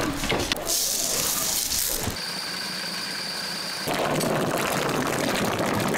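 Ground black-bean slurry pouring into a cloth straining bag over a basin, a steady rush that starts about two-thirds of the way in. Before it the sound changes abruptly a few times, with a steady high whine in the middle.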